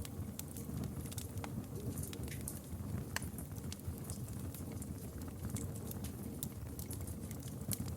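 Campfire crackling: irregular sharp pops and snaps of burning wood over a steady low rumble of flames.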